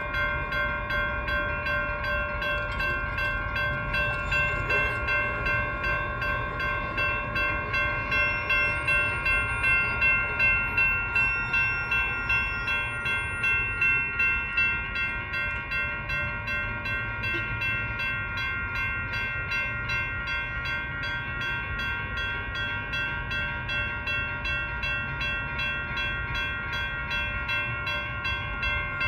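Railroad crossing warning bell ringing continuously in a rapid, even pattern of dings while the crossing signals are activated, warning of an approaching train.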